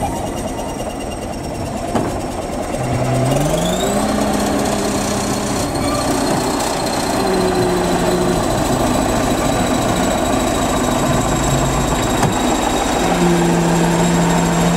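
Crawler bulldozer's diesel engine running under load as it pushes brick rubble. About three seconds in it revs up, with a high whine rising along with it, and then holds at the higher speed.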